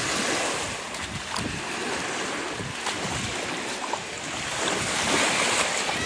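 Lake Erie waves washing onto a sandy shore, a steady rushing noise, with wind buffeting the microphone.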